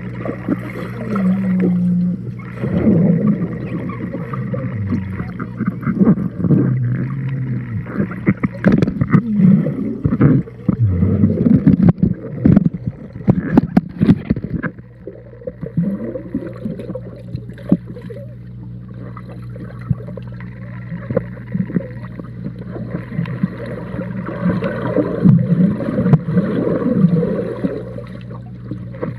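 A foam swim noodle blown like a horn, making low, buzzing, fart-like tones that hold and step between pitches. Gurgling water and sharp bubbly clicks come in the middle, over a steady low hum, heard underwater.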